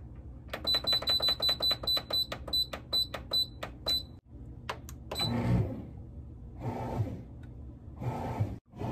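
Cuckoo bread maker's control panel beeping with each button press: a quick run of short high beeps, about five a second for some three seconds, as the menu button is stepped through to the jam program. Near the end come one more beep and a few short bursts of low rumbling noise.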